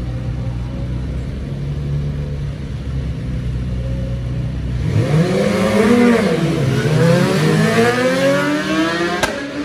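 Two sport motorcycles running at the drag strip start line, then launching about five seconds in: the engine pitch climbs, drops at a gear change and climbs again as they accelerate away. A single sharp click near the end.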